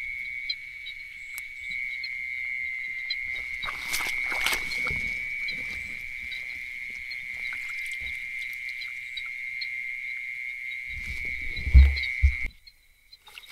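Steady, high, unbroken trill of night insects, with a rustle of vegetation about four seconds in. A heavy low thump, the loudest sound, comes about twelve seconds in, and the trill then cuts off suddenly.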